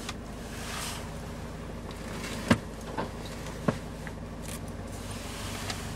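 Renault Trafic's diesel engine idling steadily, heard from inside the cab, with three sharp clicks about two and a half to four seconds in as the steering-column adjustment lever is worked.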